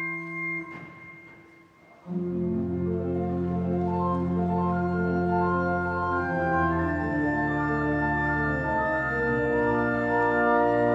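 Church organ: a held chord is released and dies away in the church's long echo, then about two seconds in the full organ comes in loud with deep bass, moving through slow, sustained chord changes.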